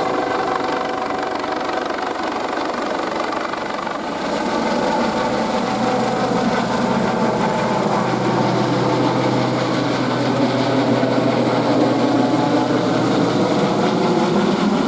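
Fire-service vehicle engines running steadily with a constant hum, growing louder about four seconds in.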